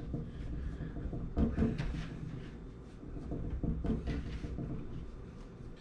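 Hands kneading bread dough on a floured cutting board: irregular soft thuds and rubbing as the dough is pulled out, folded and pushed back into itself.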